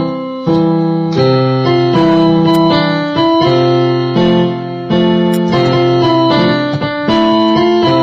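Slow instrumental background music: chords struck every second or so, each ringing and fading before the next.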